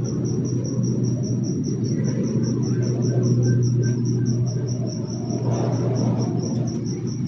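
Cricket chirping in an even, fast pulse of about six or seven chirps a second, over a loud, steady low rumble.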